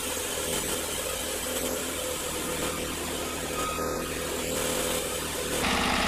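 Norwood LumberPro HD36 portable bandsaw mill running, its engine humming steadily under a hiss as the band blade is pushed into a log. Near the end the sound switches to a louder, steadier engine hum with an even pulse.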